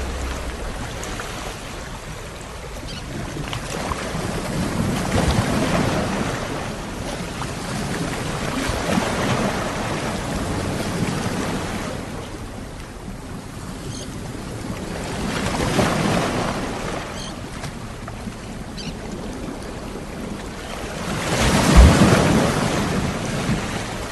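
Ocean waves rolling in and washing out in slow swells every five or six seconds, the loudest one near the end.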